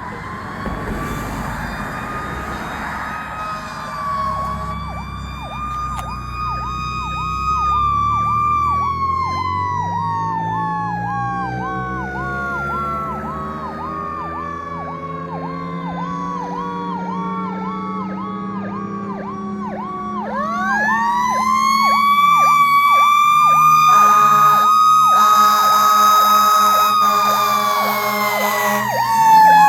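Fire engine sirens on a run: a Federal Q2B mechanical siren coasts slowly down in pitch, winds back up about two-thirds of the way through, holds its wail and begins to fall again near the end. Throughout, an electronic siren yelps rapidly over it, with the truck's Detroit Diesel 8V71 engine running underneath. Several louder blasts sound over the sirens near the end.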